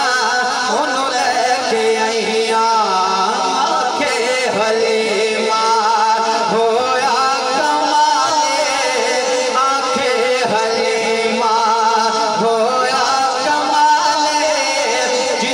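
A man singing a Punjabi naat in long, wavering, ornamented phrases over a steady low held note.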